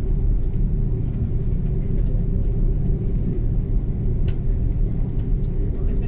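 Steady low rumble inside the cabin of an Airbus A330-300 taxiing, with a faint steady hum in it and a faint click about four seconds in.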